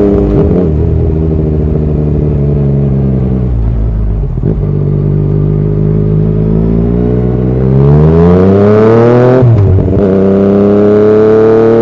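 Yamaha MT-09's three-cylinder engine through an Akrapovič exhaust, heard from the rider's seat. The engine note falls as the bike slows, runs low and steady for a few seconds, then climbs as it accelerates hard. The note drops sharply near the end and then runs on steady.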